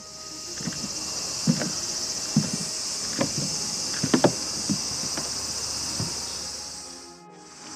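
A steady high-pitched chorus of cicadas in summer greenery, with a few scattered knocks that are footsteps on wooden decking. The sound fades in at the start and fades out near the end.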